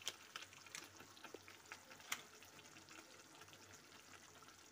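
Faint crackling and popping of thick paneer gravy simmering on a low flame in a kadhai, with one sharper pop about two seconds in.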